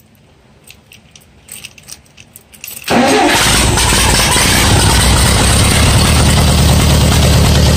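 Allis-Chalmers D17 tractor's four-cylinder engine catching about three seconds in, after a few faint clicks, and settling into a steady run.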